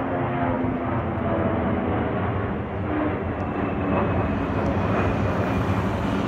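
Airbus A340-211's four CFM56 turbofan engines at climb power as the jet passes overhead just after takeoff: a steady jet roar with several held tones running through it.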